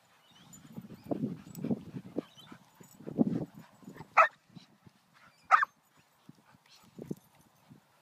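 Two dogs play-fighting: low, rough growling for the first few seconds, then two short, sharp yips, about four and five and a half seconds in.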